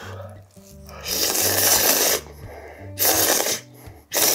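A person slurping ramen noodles from a spicy stew broth: three slurps, the first and longest lasting about a second. Background music with a steady bass line plays under it.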